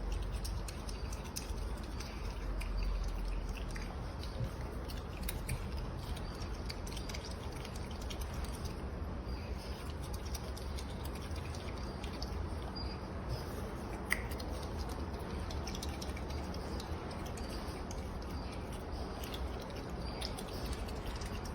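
An otter's small clicking and rustling sounds: many scattered ticks over a low steady hum, with one sharper click about fourteen seconds in.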